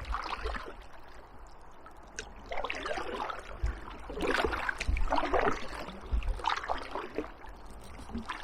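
Kayak paddle strokes, the blades dipping and pulling through the water in a steady rhythm of about one stroke a second, with water swishing along the hull.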